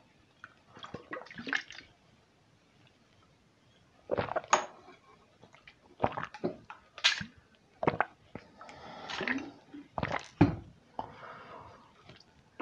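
Drinking from a plastic bottle: short clicks of the bottle being handled, then a series of swallows and gulps, with breaths between them.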